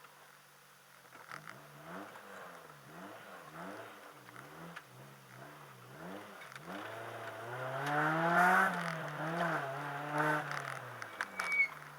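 Car engine revving up and down repeatedly, in quick short swings at first, then in louder, longer swells from about halfway, with a few sharp clicks near the end.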